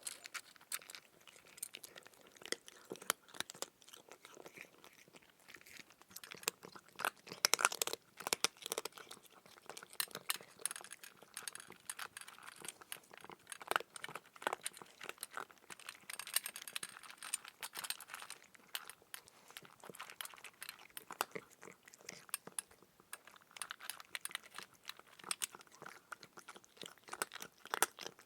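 Continuous crunchy chewing: dense, irregular crackles and clicks like something crisp being bitten and crushed, heaviest in the middle stretch.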